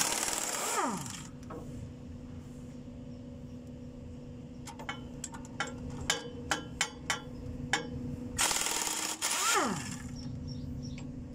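Air impact wrench on the clutch pressure-plate bolts, run in two short bursts, each winding down with a falling whine as the trigger is released. Between the bursts come several sharp clicks, over a steady low hum.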